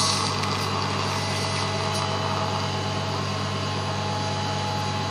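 Dental surgical suction aspirator running steadily, its tip in the patient's mouth drawing air and fluid: an even hiss over a steady motor hum.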